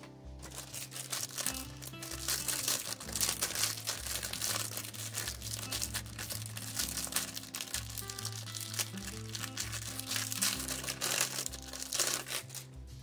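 Thin clear plastic packaging bag crinkling and crackling as it is handled and opened by hand, over background music with steady bass notes.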